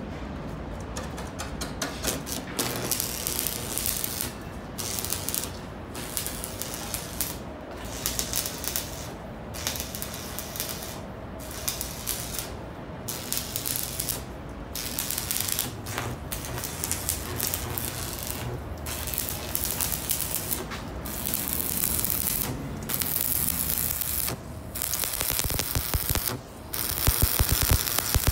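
Stick arc welding on a truck bed's steel floor plate: the arc crackles and sizzles in short runs of one to two seconds, broken by brief pauses, as the plate is stitch-welded in short beads spaced along the seam.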